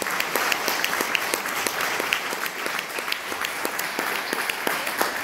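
Audience applause, with one nearby person's hand claps standing out sharply at a steady pace of about four a second.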